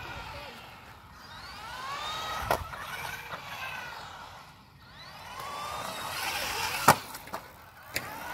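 Brushed electric motor and gear drive of a 1/18-scale four-wheel-drive RC truggy whining, rising and falling in pitch as the throttle is worked, with a few sharp knocks, the loudest about seven seconds in.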